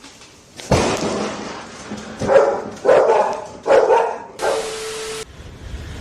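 A sudden loud crack of thunder about a second in, then a dog barking three or four times.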